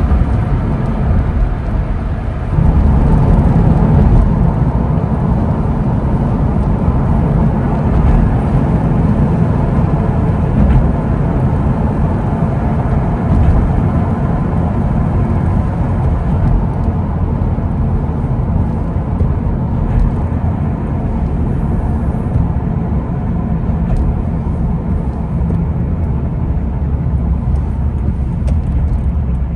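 Steady driving noise of a car on a wet road in rain, low road and engine noise; it steps up in loudness about two and a half seconds in.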